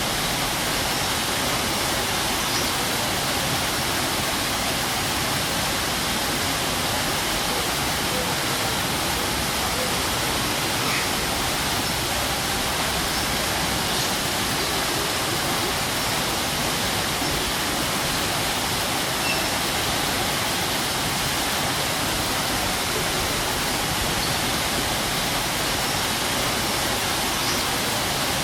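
Strong waterfall roaring steadily: a dense, unchanging rush of falling water.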